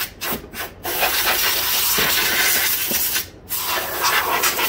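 Can of compressed air blowing dust out of a wire recorder's open drive mechanism: a few short puffs, then a long continuous hiss. The hiss breaks off briefly about three seconds in and starts again.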